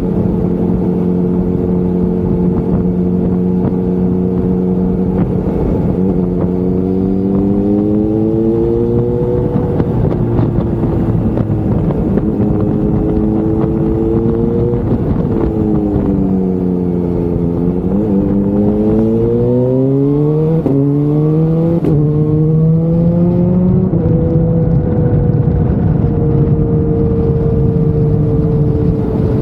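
Sports motorcycle engine under way, with wind noise over the onboard microphone. Its pitch holds steady, rises as the bike accelerates, falls as it slows, then climbs again through several quick upshifts before settling to a steady cruise.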